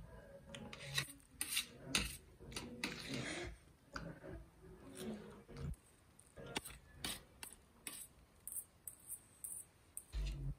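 Close-miked eating sounds: metal chopsticks clicking and scraping against a steel tray as they pick up Maggi instant noodles, with slurping of the noodles in between. The sharp clicks come irregularly, several a second at times.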